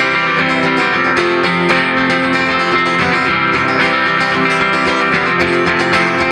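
Live band playing an instrumental passage on strummed acoustic guitar and electric guitar.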